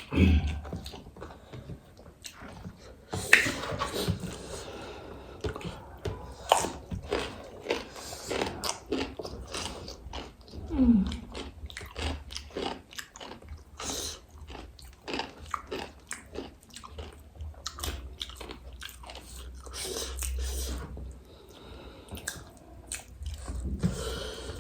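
Close-up eating sounds: repeated crisp crunching bites and chewing of fried pani puri shells.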